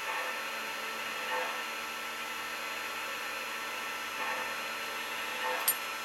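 Lionel O-gauge operating gantry crane's electric hoist motor whirring steadily as its electromagnet hoists a load of old rails, with a sharp click near the end.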